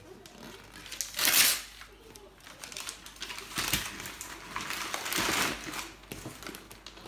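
Gift wrapping paper rustling and crinkling in three short bursts, the loudest about a second in, as paper is pulled off a toy box.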